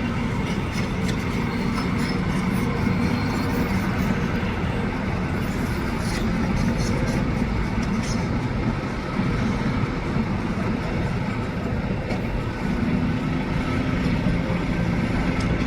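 A large engine running steadily, with a low droning hum that grows stronger and slightly higher about thirteen seconds in.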